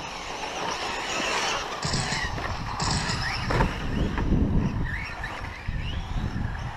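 Radio-controlled 4wd short course trucks racing on a dirt track. Their electric motors whine, rising and falling in pitch as they speed up and brake, over a steady rushing noise.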